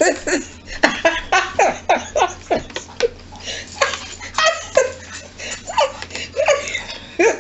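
A woman laughing hard in a long run of short bursts, each falling in pitch.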